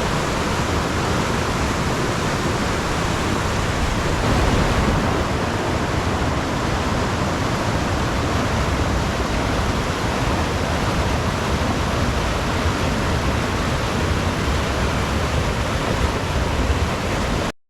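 Steady rushing of a cascading mountain stream or waterfall, an even wash of water noise with no break. It cuts off abruptly near the end.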